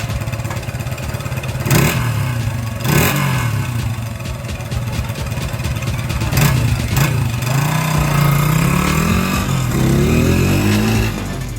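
1981 Honda XR100's small single-cylinder four-stroke engine being ridden hard, its pitch rising and dropping again and again as it accelerates and changes gear, with a few short rushes of noise. The engine has just had its carburettor cleaned, valves and cam chain adjusted.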